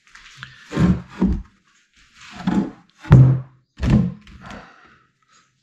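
Heavy thuds on wood, about six at uneven spacing, as wooden stair pieces are knocked and set against each other.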